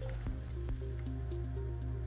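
Background music: a melody of short notes stepping up and down over a steady low bass.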